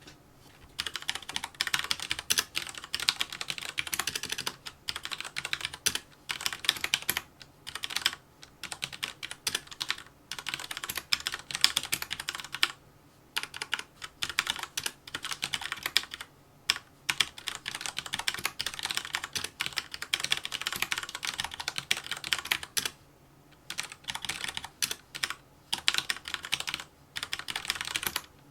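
Fast touch-typing on a mechanical keyboard with red (Cherry MX Red-type) linear switches: rapid keystroke clicks in runs of a few seconds, broken by short pauses.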